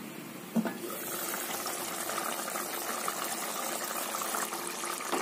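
A glass pot lid clinks once about half a second in, then a thick egg curry bubbles and sputters steadily as it simmers on low flame to thicken.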